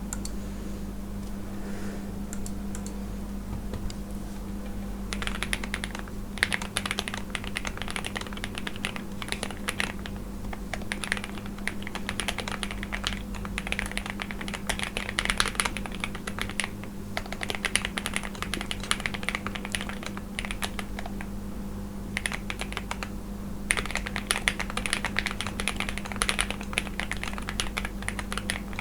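Typing on a Zoom65 mechanical keyboard whose switches are lubed with Krytox 205g0 and filmed, and whose stabilizers are hole-modded: a fast, steady run of keystrokes starting about five seconds in, with a brief pause about two-thirds of the way through.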